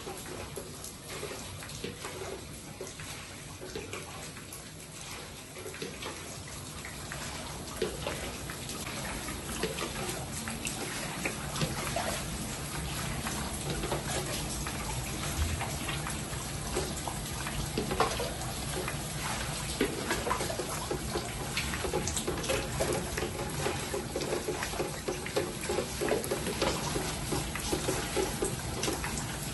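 Floodwater splashing as it is scooped up off a tiled floor with a container, with scattered knocks and clicks; louder from about ten seconds in.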